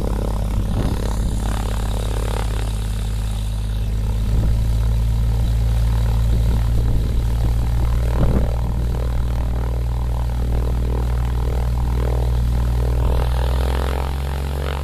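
Cessna light aircraft's piston engine and propeller droning steadily, the engine note shifting near the end.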